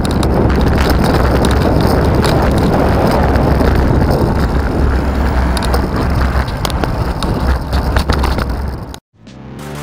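Riding a bicycle through city traffic: wind noise on a bike-mounted microphone, a heavy low rumble, over the sound of cars on the road. About nine seconds in it cuts off abruptly and strummed guitar music begins.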